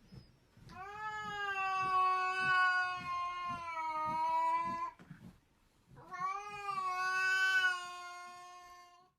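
Domestic cat yowling: two long, drawn-out calls at a nearly steady pitch, the first about four seconds and the second about three, with a brief pause between them.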